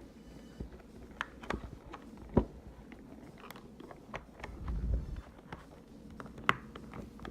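Irregular sharp plastic clicks and snaps as the shell of a PS4 controller is pried apart with a small flathead screwdriver, its clips giving way; the loudest snaps come about two and a half seconds in and near the end, with a dull handling bump around five seconds in.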